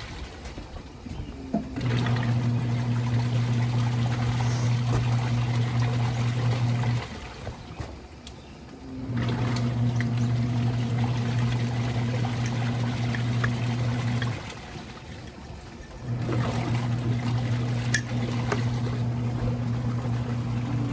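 Portable twin-tub washing machine's wash motor humming in runs of about five seconds with pauses of about two seconds between, water sloshing in the tub: the stop-start agitation of a wash cycle.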